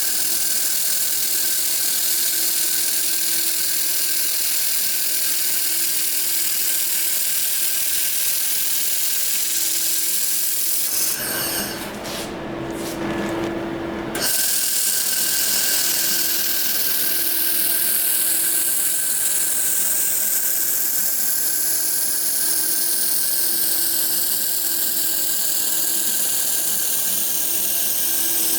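A handheld power tool running steadily with a high hiss and a thin constant whine. About eleven seconds in, a different, fuller sound takes over for about three seconds, then the steady running resumes.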